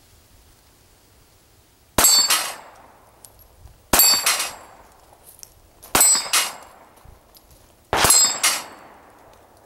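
Four shots from a Smith & Wesson Bodyguard .380 ACP pocket pistol, about two seconds apart, each a hit on an 8-inch steel plate that gives a ringing metallic clang as it is knocked down.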